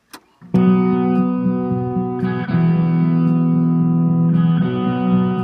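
A button click on a 1980s Panasonic SG-J800 boombox, then music with electric guitar starts about half a second in, playing from a vinyl record on the unit's turntable through its built-in speakers.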